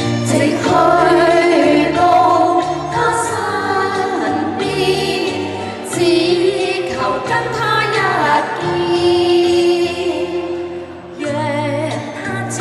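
Women singing a pop ballad together through handheld microphones over backing music with a steady bass line; the singing dips briefly near the end.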